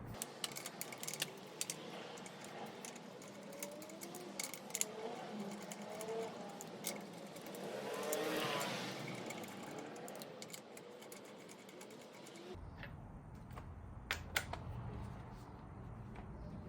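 Scattered light clicks and metallic taps of wheel bolts and hand tools as a wheel is being refitted, with a short louder swell of noise about halfway through.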